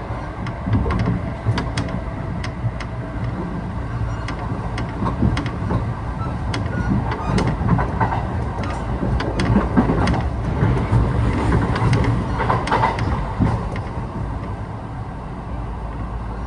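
Running noise inside a Kintetsu 1620 series electric train at speed: a steady low rumble with frequent sharp clicks of the wheels over rail joints. It grows louder through the middle and eases off near the end.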